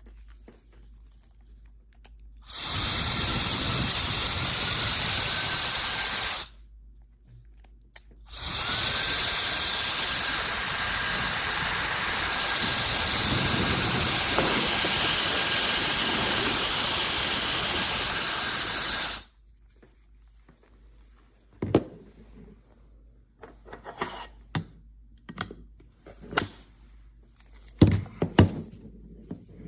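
SUPGALIY mini ionic hair dryer switched on twice. Its high-speed motor whines up in pitch and then runs steadily with a rush of air, first for about four seconds, then for about eleven. Near the end come a series of light clicks and knocks.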